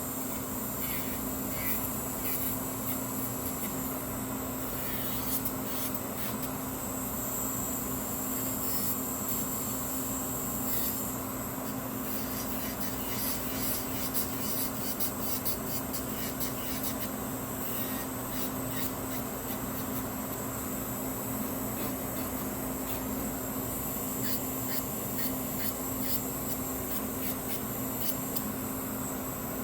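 A nail file rasping in short, irregular strokes against a hardened gel nail as it is shaped, over a steady low hum.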